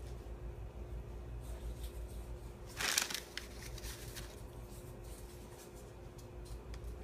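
A brief scratchy rustle about three seconds in, with a few faint clicks after it, over a steady low hum: handling noise from swatching eyeshadow.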